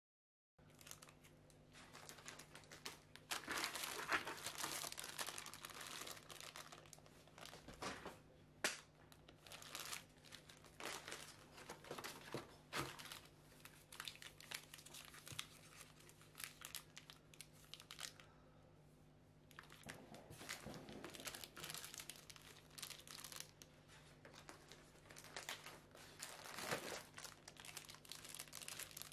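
Plastic chocolate-bar and sweet wrappers crinkling and rustling as they are handled, in irregular bursts of small crackles, with a short lull about two-thirds of the way through.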